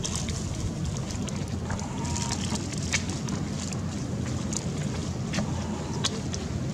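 Wind rumbling on the microphone over outdoor ambience, with scattered short clicks and rustles.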